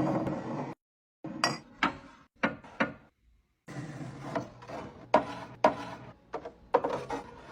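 Knocks and clatter of containers and food items being set down and slid around while a fridge is restocked, in short edited snatches with two brief dead-silent gaps.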